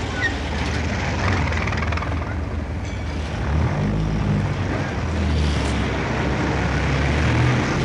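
Heavy road traffic: a continuous wash of engine and tyre noise with a low rumble, and the deeper hum of large engines growing stronger from about halfway.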